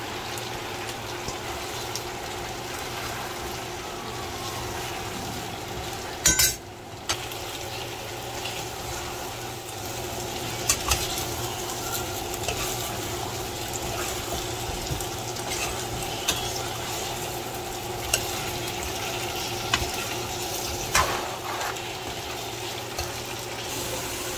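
Chicken drumsticks and sliced onion sizzling in a frying pan as they are stirred, with scattered clicks and knocks of the utensil against the pan, the loudest about six seconds in. A steady low hum runs underneath.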